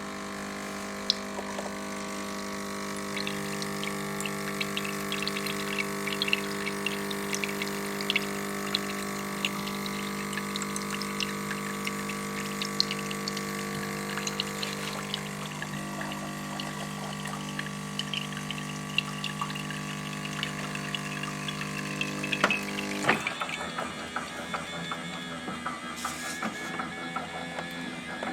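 Siemens EQ500 Classic coffee machine's pump humming steadily during its automatic start-up rinse, with hot water spitting and crackling out of the spout. The pump hum cuts off abruptly near the end, leaving a fainter crackle.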